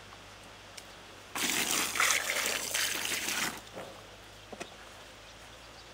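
Water splashing and trickling for about two seconds, starting sharply a little over a second in and stopping abruptly.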